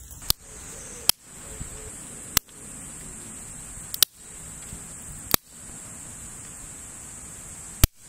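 Dry twigs being snapped by hand: six sharp cracks, irregularly one to two and a half seconds apart, over a steady high buzz.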